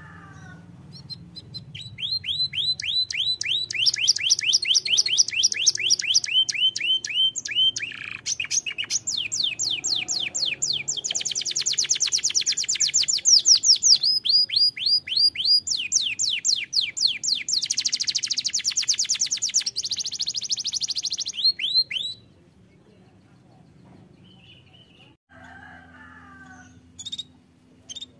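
Domestic canary singing a long song of high, rapid trills (rolls): strings of repeated sweeping notes in several phrases that change pitch. The song stops abruptly about 22 seconds in, followed by a few brief chirps near the end.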